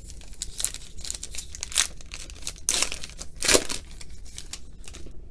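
A foil pack of 2018 Panini Unparalleled football cards being torn open by hand, the wrapper crinkling between several sharp rips, the loudest about three and a half seconds in.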